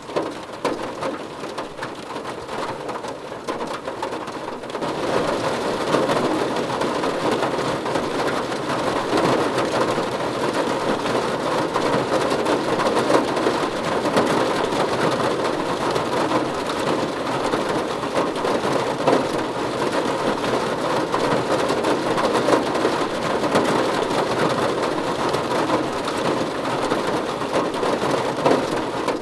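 Steady rainfall, growing heavier about five seconds in and then holding even.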